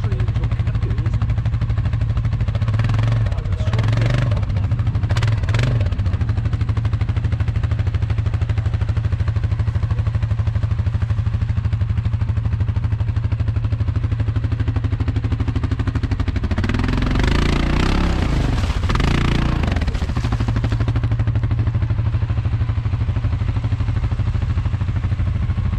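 ATV engine running at low revs under load as the quad claws up a steep mud bank, with the throttle opened twice: briefly a few seconds in and again for a few seconds about two-thirds of the way through.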